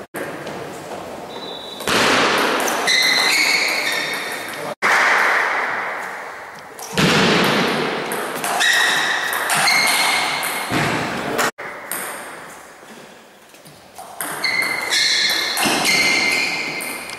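Table tennis rallies: the celluloid ball clicks off bats and the table in quick exchanges, with high squeaks and loud bursts of noise after some points. Short cuts break the sound between points.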